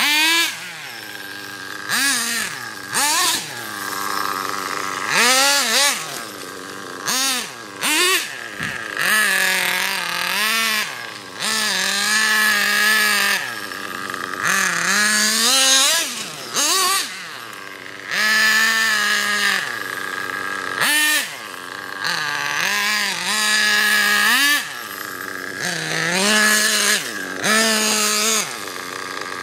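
Small nitro engine of an OFNA Ultra LX Comp radio-controlled car, revving up and down over and over as the throttle is blipped and released, falling back to a steady idle between bursts.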